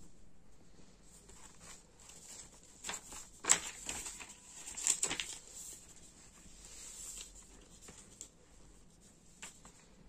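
Paper planner pages rustling and brushing under a hand, with small taps and crinkles; the loudest rustles come about three and a half and five seconds in.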